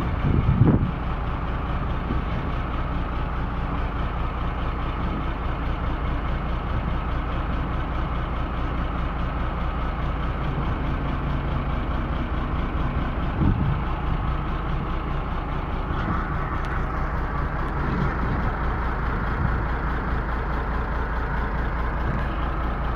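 Komatsu bulldozer's diesel engine running steadily, with a brief louder blip just after the start and another about halfway through.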